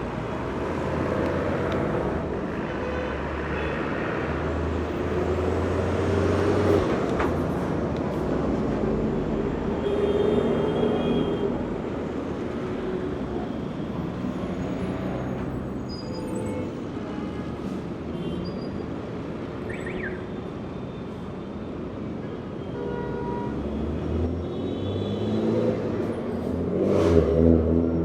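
Heavy traffic on a busy city street: cars, trucks and buses passing one after another, with the low rumble of heavy engines swelling and fading, and a few short horn toots. The loudest vehicle passes close near the end.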